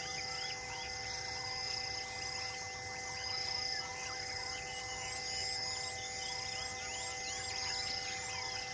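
Natural ambience of many birds chirping in quick, repeated calls over an insect buzz that comes and goes every second or so. A few steady held tones run underneath.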